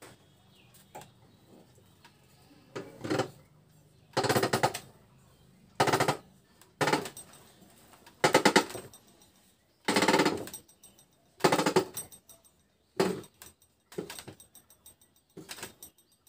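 Hand-turned screw press forcing the shaft out of an e-rickshaw BLDC motor's magnet rotor: metal grating and creaking under load in a series of about ten short strokes, roughly one every second and a half, each a rapid rattle of clicks, growing weaker near the end.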